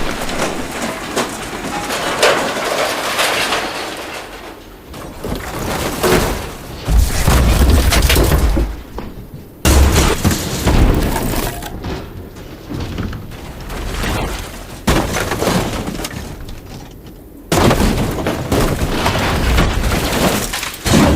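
Scrap metal and cast-iron debris falling and crashing onto the ground, several separate drops, each a sudden crash followed by rattling and clattering that dies away.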